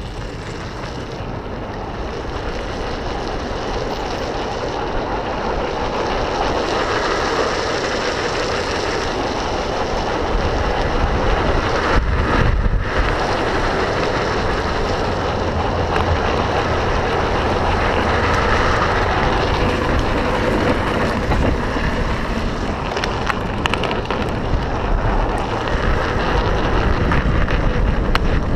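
Wind rushing over the microphone with the continuous rumble and scrape of drift-trike wheels rolling on asphalt, getting louder and heavier through the first ten seconds or so.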